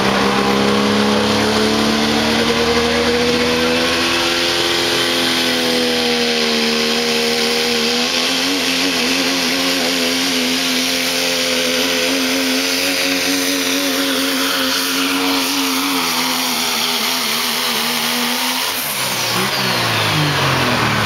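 Dodge Ram pickup's Cummins turbodiesel straining at high revs under full load while pulling a weight sled. Its pitch climbs a little, holds steady for most of the pull, then falls away about two seconds before the end as the throttle comes off.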